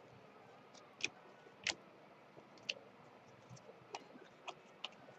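Trading cards being handled and shuffled through: a handful of sharp, irregularly spaced light clicks and snaps, the loudest two about a second in.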